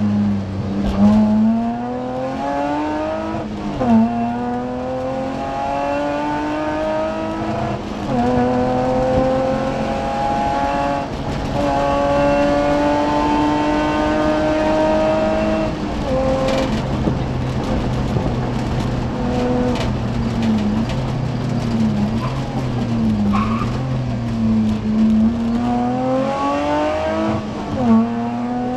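BMW E30 rally car's engine heard from inside the cabin, revving hard up through the gears with quick upshifts about 4 and 8 seconds in and holding high revs. About halfway it drops away and runs at lower, changing revs through the corners, then climbs again near the end.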